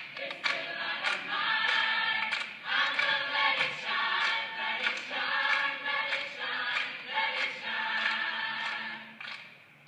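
A choir singing over a steady beat: a video's music soundtrack played through room speakers.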